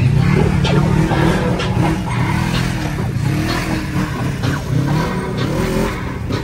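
Off-road vehicle engine revving, the revs rising and falling repeatedly, with wheels spinning as it drives through deep mud.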